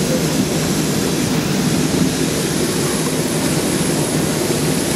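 Jet aircraft running on the airport apron: a loud, steady rush of noise with a thin, steady high whine above it.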